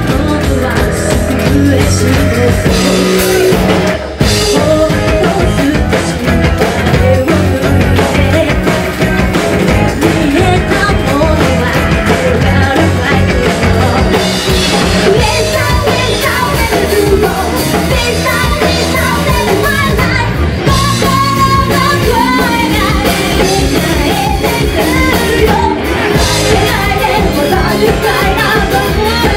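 A rock band playing live, with a woman singing lead over electric bass and a drum kit.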